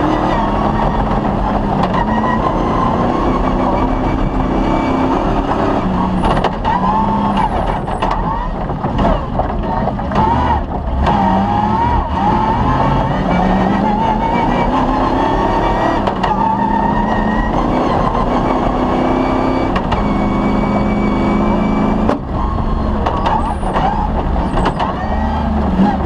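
Engine of an off-road rally vehicle running hard, its pitch rising and falling again and again as it accelerates and eases off, with a brief dip about 22 seconds in.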